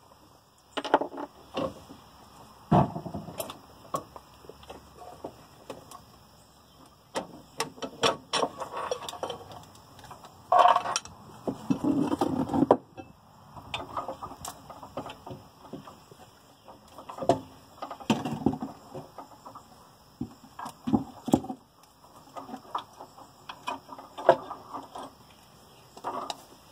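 Irregular clicks, knocks and clatter of hand work with tools and parts, with a busier stretch of rattling about ten to thirteen seconds in.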